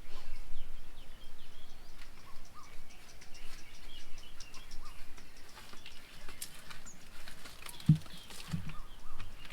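Several small birds chirping and calling, with many short overlapping notes. Two low thumps come near the end.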